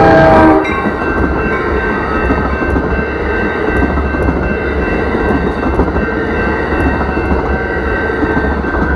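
Amtrak passenger train, led by cab car 6952: its horn blast cuts off about half a second in, then the train rolls by with a steady low rumble and wheel clatter.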